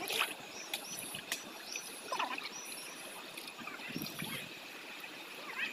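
Water sloshing and trickling as a small cooking pot is dipped into a shallow stream and scooped, with a few short splashy sweeps over the stream's steady flow.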